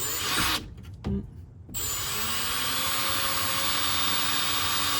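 Power drill boring a small drain hole in the bottom of a van door, to let trapped rainwater out. A brief trigger pull, then a steady run of about four seconds with a constant motor whine.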